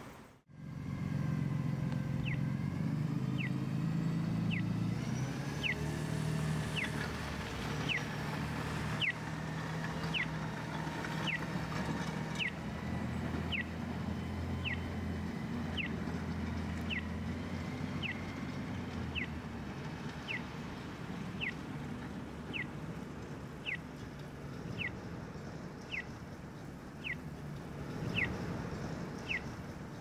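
Accessible pedestrian crossing signal chirping during the walk phase: a short falling chirp repeated evenly about once a second, starting about two seconds in, over the low rumble of traffic engines.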